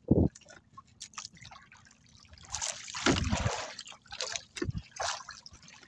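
Water dripping and sloshing against a small outrigger boat, with a low knock at the start and a louder splash about three seconds in, followed by a few small taps.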